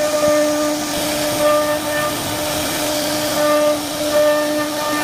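CNC router spindle running at speed, a steady high whine with a hiss underneath, as its bit carves a wooden door panel.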